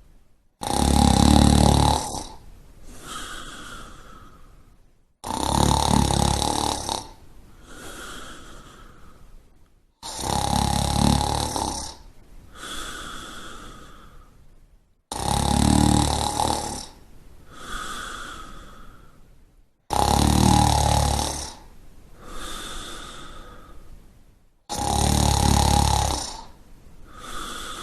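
A person snoring in a slow, regular rhythm: six loud, rattling snores about five seconds apart, each followed by a softer breath.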